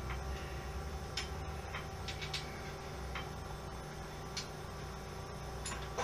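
Scattered light metal clicks and taps as a bicycle front wheel's axle is worked into the fork dropouts, over a steady low hum.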